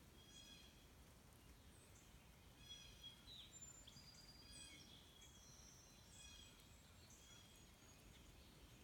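Faint morning chorus of several birds singing and calling: many short, high chirps and trills overlapping throughout, over a steady low background rumble.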